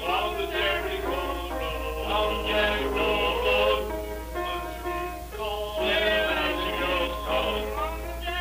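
Old, muffled home recording from about 1954 of a group of men rehearsing, singing continuously, with a steady low hum underneath.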